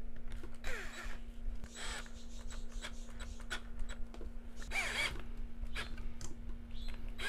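Bolts being fastened onto a spot welder's cable terminals: three short mechanical bursts of turning and scraping, about a second in, near two seconds and near five seconds, with small clicks between them, over a steady low hum.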